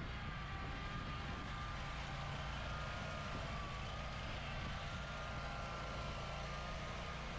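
Bobcat ProCat 6000 zero-turn mower's Kawasaki engine running steadily as the mower drives along and climbs a loading ramp into a trailer.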